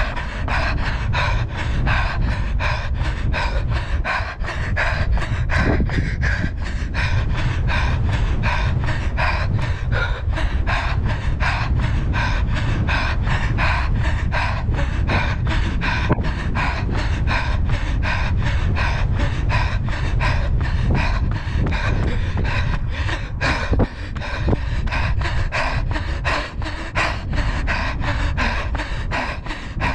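A runner panting hard at tempo pace, the breathing and strides beating evenly about three times a second. A steady low wind rumble on the action camera's microphone runs underneath.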